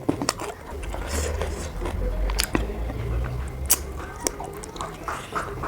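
Close-up eating sounds: a person chewing a mouthful of roti and curry, with several sharp smacks and clicks of mouth and food.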